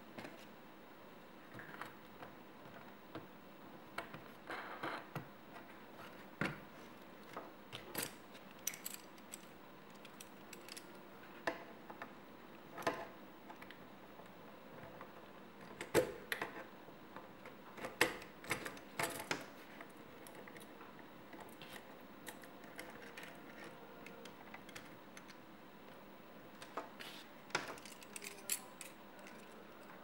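Metal parts of a paracord jig being handled and assembled: irregular clicks, clacks and small rattles as the metal towers are fitted and slid onto the ruled aluminium bar, with the sharpest knocks about midway.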